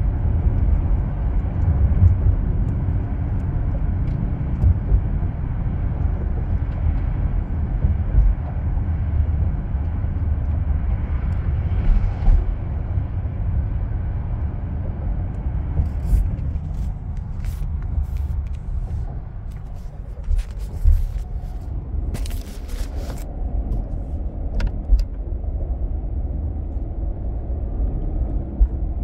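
Car travelling at highway speed, heard from inside the cabin: a steady low rumble of road and engine noise, with a few light clicks and knocks in the second half.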